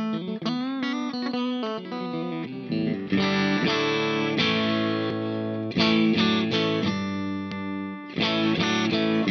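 Electric guitar, a Fender Aerodyne Special HSS Stratocaster, played through the compressor side of a Caline Key West compressor/overdrive pedal. It plays single-note lines with string bends, then chords struck three times, each holding long and even under the compression.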